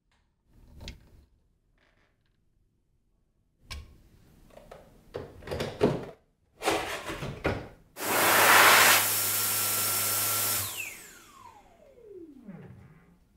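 Knocks and handling of the hand dryer's plastic filter unit as it is fitted into the body, then the Dyson Airblade 9kJ hand dryer is switched on for a test: a sudden loud rush of air for about three seconds, after which the motor spins down with a long falling whine.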